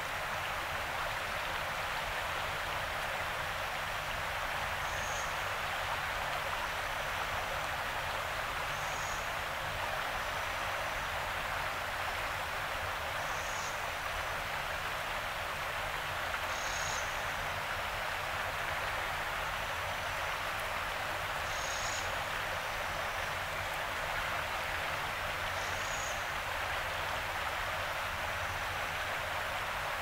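Yarra River water running with a steady rushing hiss. A short high-pitched call repeats about every four seconds over it.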